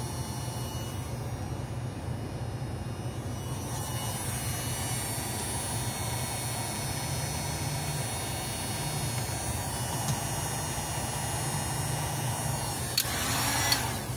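Steady low electrical hum. Near the end comes a rasping, scrape-like noise lasting about a second.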